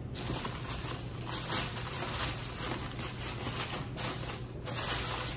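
Brown shipping paper rustling and crinkling as a handbag is pressed down into it inside a box, with a brief lull about four seconds in.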